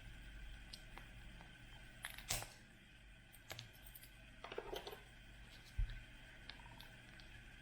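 Hands handling a plastic surprise toy ball and its packaging: scattered clicks and taps, a short crinkling rustle in the middle, and a dull knock near the end.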